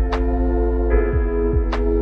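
Background electronic music: sustained synthesizer chords over a steady low beat of about two thuds a second, with a sharp hit about every second and a half.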